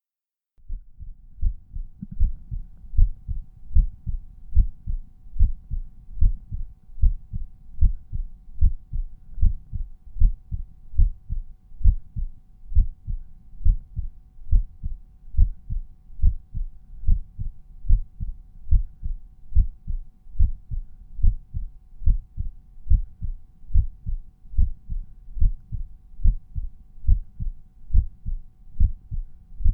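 Resting human heartbeat at the mitral auscultation point: regular lub-dub heart sounds in a steady rhythm, starting about half a second in.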